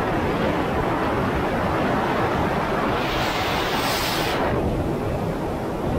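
Jet ski running at speed across flat water, heard from a camera mounted on the craft: a steady rush of wind buffeting the microphone over the engine and hull noise, with a brighter hiss swelling about three seconds in and fading a second later.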